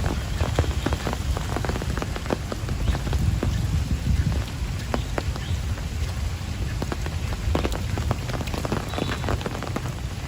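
Heavy rain falling steadily, with many individual drops striking sharply and distinctly over the dense hiss of the downpour.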